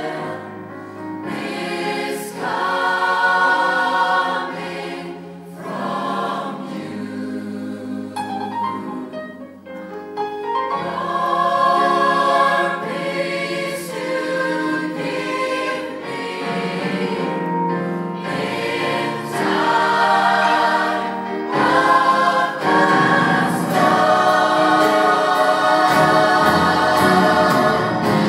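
A large choir of men's and women's voices singing together in harmony, the phrases swelling and easing, with quieter moments about six and ten seconds in and a fuller, louder passage after that.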